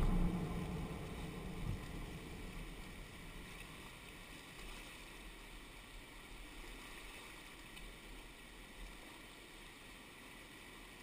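Faint, steady rush of whitewater rapids after music fades out over the first second or two.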